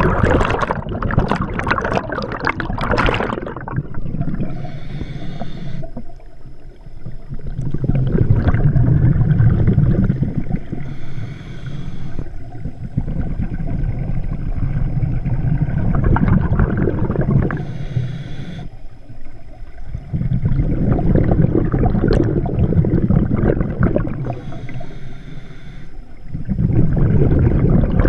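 Scuba regulator breathing heard underwater, about one breath every six to seven seconds. Each inhale is a short, faint hiss, followed by a longer low rumble of exhaled bubbles. The first exhale, at the start, also carries bubbly crackling.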